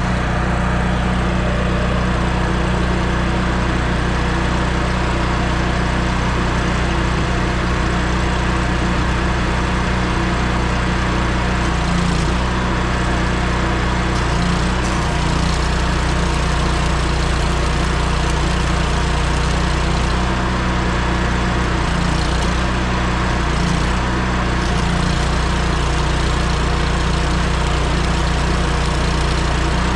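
An engine running steadily at constant speed, a deep even hum with no change in pitch.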